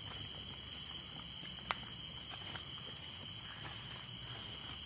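Steady chorus of night insects, with soft footsteps on a forest path beneath it. One sharp click about a third of the way in.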